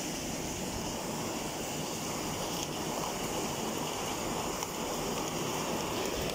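Rain pouring down steadily, an even hiss.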